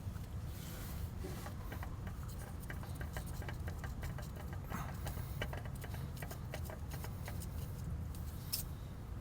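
Small irregular scrapes and clicks of hands turning an oil filter onto its threaded mount under the engine, over a steady low rumble.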